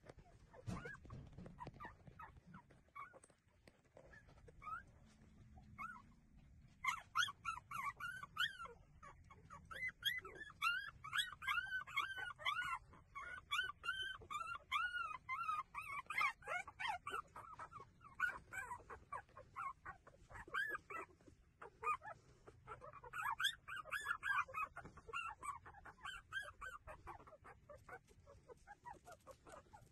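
Newborn puppies squeaking and whimpering as they nurse, many short high cries overlapping. The cries start about seven seconds in and die down near the end.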